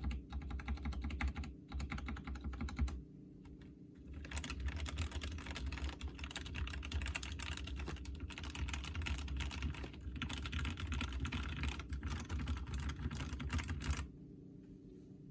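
Fast typing on an Ajazz AK33 mechanical keyboard modded with lubed Ajazz black linear switches and lubed, clipped stabilizers. The typing pauses briefly about three seconds in, then runs on and stops about a second before the end.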